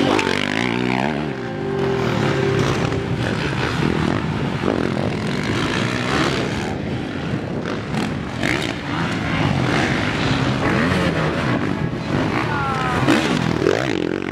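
Several motocross dirt bikes racing, their engines revving hard and running up and down through the gears. The pitch keeps rising and falling, with more than one engine heard at once.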